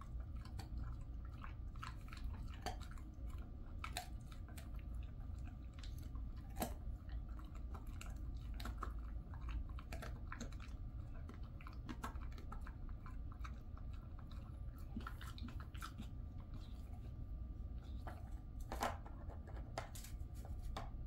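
A Jindo dog chewing a dried elephant-fish treat: slow, irregular crunches and clicks of the jaws over a steady low hum.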